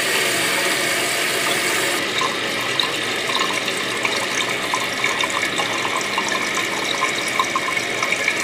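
An American Standard Cadet 3 dual-flush toilet's fill valve refilling the tank after a half (liquid-waste) flush: a steady hiss of water rushing in, with light bubbling.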